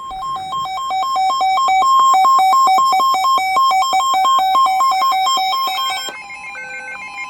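Loud electronic alert melody: two notes alternating rapidly, several times a second. About six seconds in, it changes to a slower pattern of different notes.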